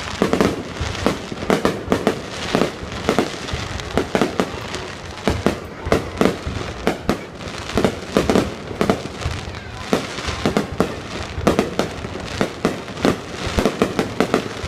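Fireworks display: a rapid, uneven string of loud bangs, several a second, over a constant crackling rumble.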